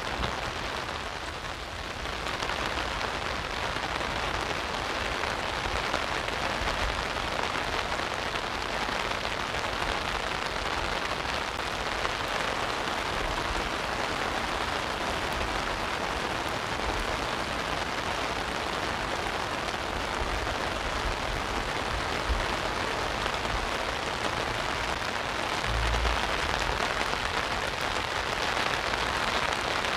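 Steady rain pattering on an umbrella overhead, an even hiss of drops, with a brief low rumble near the end.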